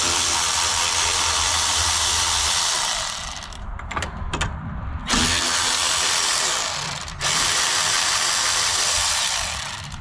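Milwaukee M12 cordless ratchet with a 10mm socket spinning out the bolts of a Ford Transit door check assembly. It runs in three spells of two to three seconds each, with a pause of about two seconds after the first spell that holds a few clicks.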